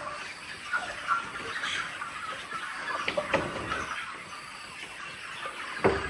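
A flock of chickens clucking while they forage, in scattered short calls, with a few knocks and one sharp knock near the end.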